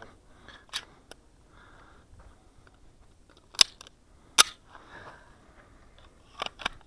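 Sharp metallic clicks of a Kahr CW9 9mm pistol being handled while loaded and made ready: two loud clacks a little under a second apart in the middle, with lighter clicks near the start and near the end, and soft handling rustle between.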